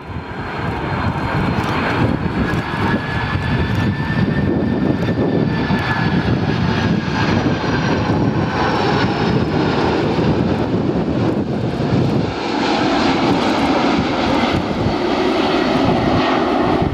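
Boeing 747-400 airliner passing low on landing approach, its four jet engines giving a loud steady rumble under a high whine that sinks slightly in pitch and fades as it goes by. The deep part of the rumble thins about twelve seconds in as it flares over the runway.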